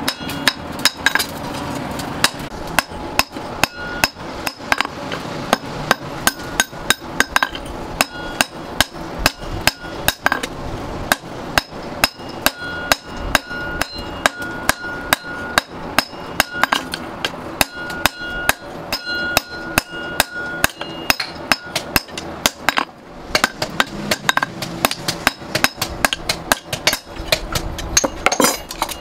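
Hand hammer striking a red-hot axe head on an anvil, about two to three blows a second, with metal ringing between the blows.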